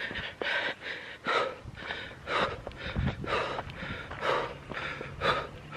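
A woman breathing hard through her mouth, a heavy breath about once a second, winded from climbing a steep hiking trail.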